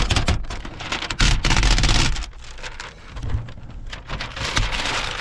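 Dark 5% window tint film crackling and crinkling as it is peeled off a truck topper's window glass by hand, in uneven spurts of crisp noise.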